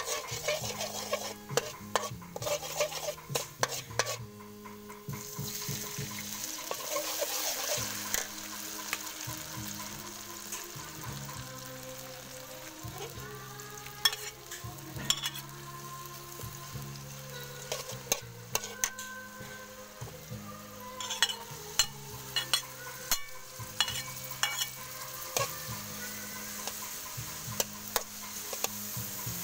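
Chopped garlic sizzling in hot oil in a steel wok, with a metal spatula scraping and clinking against the pan. In the later part, sharp clinks as river clams are stir-fried in the wok.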